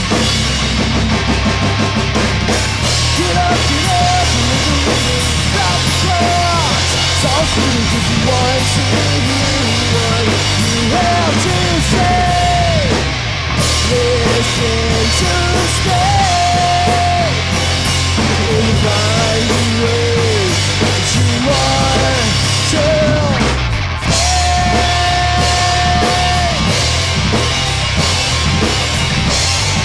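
Rock music with a drum kit and a sung melody over a loud, steady band backing.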